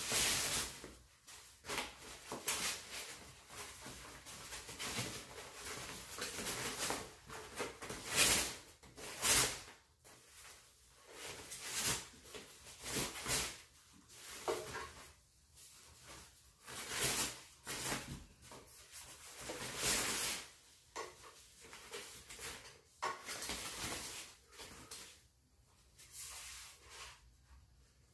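Foam packing wrap and plastic sheeting rustling and crinkling in irregular bursts as it is pulled and torn off a bike frame.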